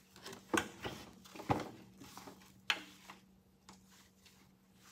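A shop rag wiping down a metal dry-sump oil tank, with a few sharp light knocks and clicks as the tank and its fittings are handled; the loudest come about half a second, a second and a half, and nearly three seconds in.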